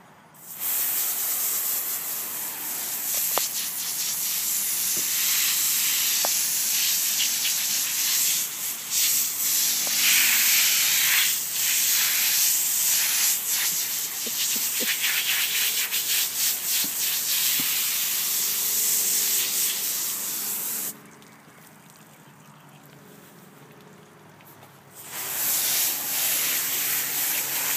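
Water spraying from a hose onto a horse's coat, a steady hiss that cuts off suddenly for about four seconds near the end and then starts again.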